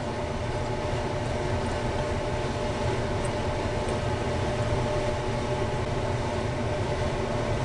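A steady mechanical hum with a couple of faint steady tones in it, unchanging throughout.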